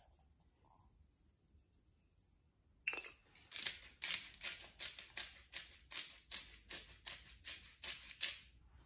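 Hand pepper mill grinding peppercorns, with about three twists a second for some five seconds, starting about three seconds in after a near-silent start.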